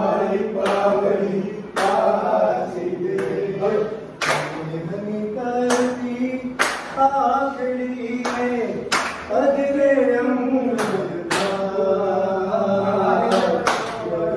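A group of men singing a garba song together, with sharp hand claps landing about once a second to the dance rhythm.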